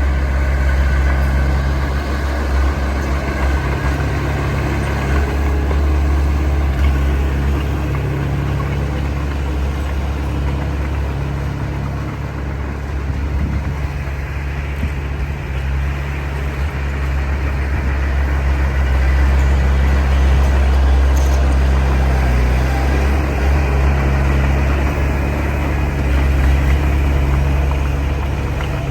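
Heavy diesel engine of earthmoving machinery running steadily with a deep drone, easing off slightly midway and picking up again later.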